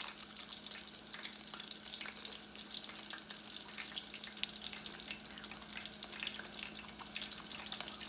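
Frozen samosas deep-frying in hot oil in a stainless saucepan, a steady sizzle full of small crackles and pops. A steady low hum runs underneath.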